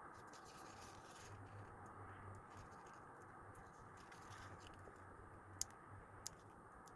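Faint handling of paper and stickers at a desk, with light scratching rustles, then two sharp clicks a little over half a second apart near the end.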